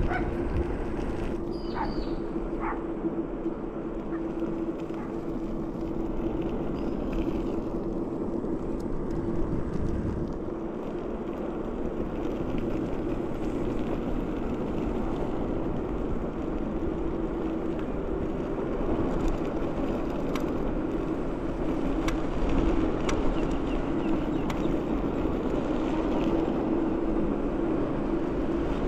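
Ninebot Max G30P electric kick scooter riding along: a steady hum from its hub motor over the rushing noise of tyres on asphalt and wind.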